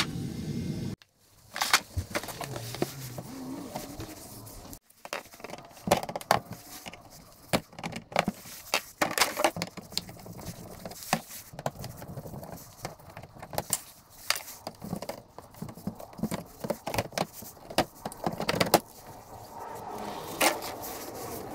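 Irregular sharp clicks and clatter of plastic fasteners being prised out with a screwdriver and the plastic engine undercover of a Mazda CX-5 being handled as it comes off.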